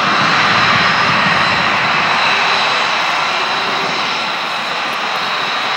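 An F-22 Raptor's twin turbofan jet engines running at taxi power as the jet rolls past: a steady roar with a thin high whine over it.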